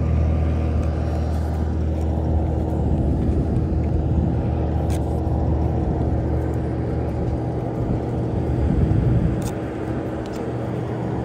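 Steady low engine rumble with a constant hum, swelling slightly near the end.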